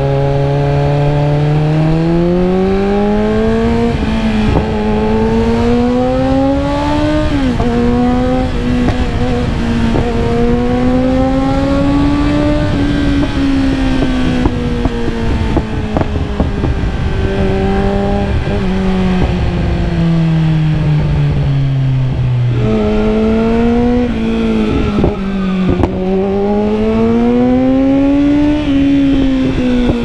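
Kawasaki Z900's inline-four engine through a Yoshimura R-11 full exhaust system with the dB killer (baffle) removed. The loud engine note climbs and falls in pitch in long sweeps several times, with a sharp drop about seven seconds in and a long steady fall in the middle.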